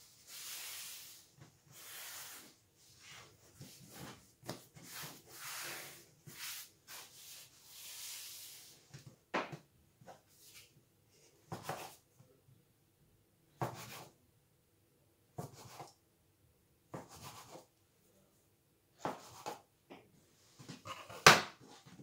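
Hands rolling a log of bread dough back and forth on a countertop, a soft swishing rub. About nine seconds in, a blade starts cutting the log into pieces, each cut ending in a sharp knock on the counter roughly every two seconds; the last knock is the loudest.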